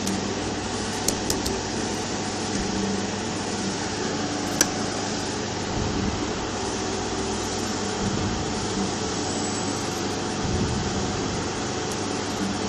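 Hot air rework station blowing steadily onto a QFN64 chip to reflow its solder, a continuous fan-driven rush of air. A few short clicks come about a second in, and a sharper one a little before the middle.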